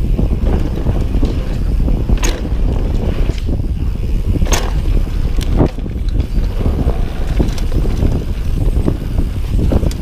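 Commencal mountain bike rolling fast down a dirt trail: a steady low rumble of wind on the microphone and tyres on dirt, with the bike rattling and a few sharp clacks, about two, four and a half and five and a half seconds in.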